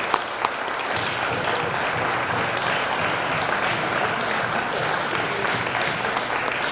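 A crowd applauding steadily at the close of a toast.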